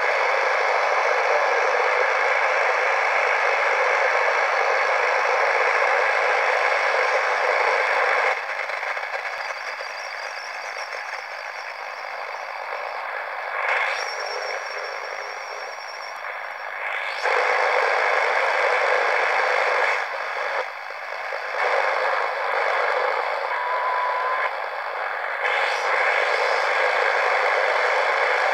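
Analog radio receiver hissing with static between stations as the dial is turned. The hiss drops and returns several times, with brief faint whistles along the way.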